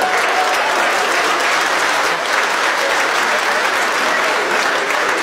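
Audience applauding steadily, a dense even clatter of many hands clapping.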